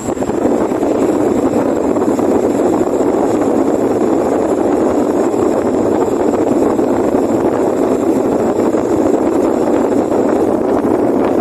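Vent-New 60 cm 200 W oscillating wall fan running, a loud, steady rush of air from its blades.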